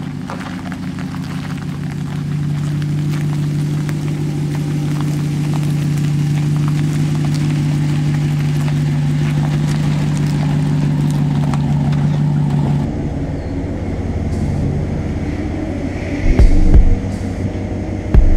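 Ram 1500 pickup truck engine running on the move, a steady drone that slowly grows louder and then falls off about thirteen seconds in. Near the end come a few loud low thumps.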